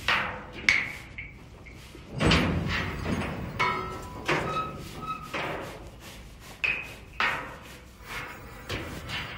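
Dumpsters played as percussion instruments: about a dozen irregular struck-metal hits and thuds, several leaving a short ringing tone.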